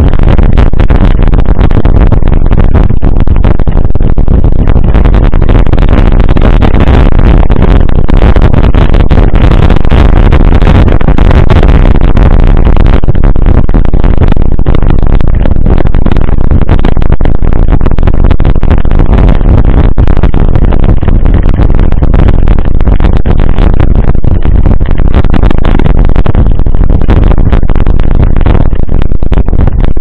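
Wind buffeting a mountain bike's handlebar-mounted action camera microphone, with tyre noise and the bike's rattling and clicking over a rough dirt road. The noise is loud, steady and mostly low.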